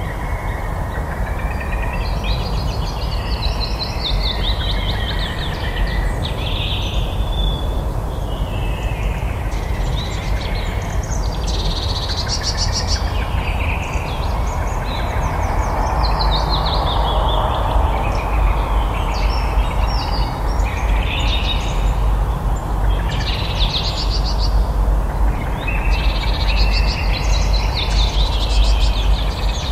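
Many birds chirping and trilling one after another throughout, over a steady low background rumble.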